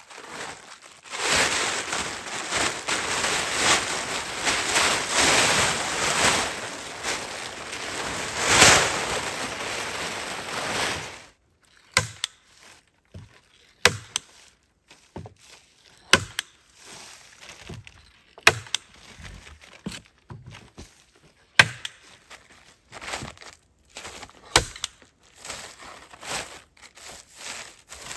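Plastic tarpaulin rustling and crinkling loudly as it is unfolded and shaken out, for about ten seconds. After that, quieter rustling broken by sharp single clicks and knocks every second or two.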